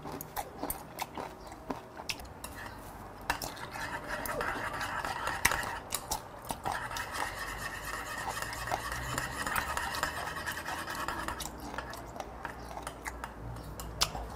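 Metal chopsticks clicking and scraping against ceramic plates and side dishes as food is picked up, in many short sharp clinks.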